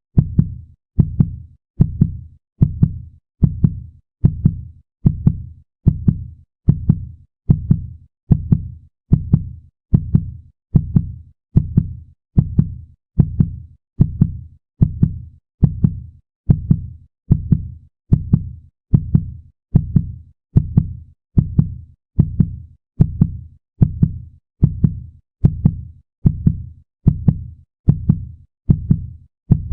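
Heartbeat sound effect: a steady, even rhythm of low double thumps, lub-dub, a little over one beat a second.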